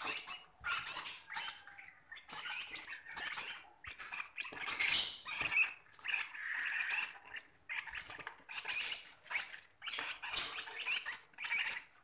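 Lovebird chicks giving begging calls: rapid, high-pitched, raspy squeaks repeated in quick succession, the hunger calls of chicks at feeding time.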